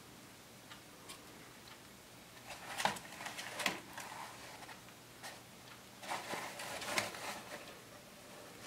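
Pet rats lapping and smacking at soft food on a plate: small wet clicks and licks, in two busier spells about three seconds in and again between six and seven seconds.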